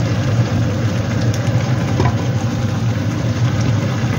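Green beans and minced pork simmering and sizzling in a wok with a little hot water added, over a steady low hum, with a spatula clicking and scraping against the pan a few times.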